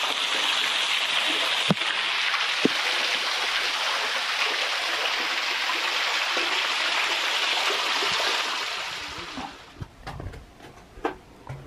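Water splashing and trickling down over rocks from an opening in a cave roof, a steady rushing hiss that fades out about nine seconds in. A few faint knocks follow near the end.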